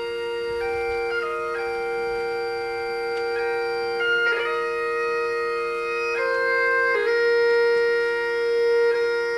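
Bagpipe music: two steady drone notes held under a slow melody of long notes that change about once a second.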